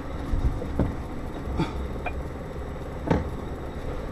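Scania S520 V8 truck engine running at low revs, heard as a steady low rumble inside the cab, with several short knocks and clunks, the loudest about three seconds in.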